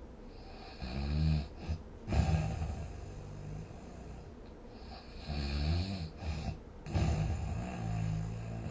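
A sleeping person snoring, two snoring breaths about four and a half seconds apart. Each is a low, pitched snore that breaks off for an instant before a louder, noisier stretch.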